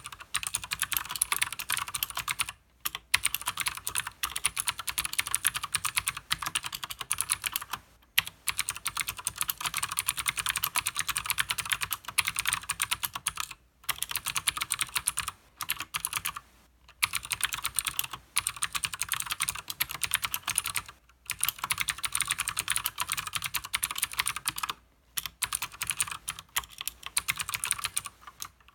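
Fast, continuous typing on a Leopold FC900R mechanical keyboard with clicky Cherry MX Blue switches and PBT keycaps. Rapid keystroke clicks come in long runs, broken by brief pauses every few seconds.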